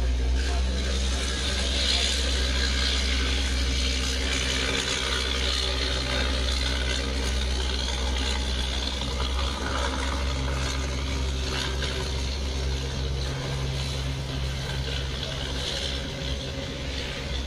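Engine of a wooden fishing boat running steadily as it motors past close by, its low hum shifting in pitch about ten seconds in, over a wash of wind and choppy water.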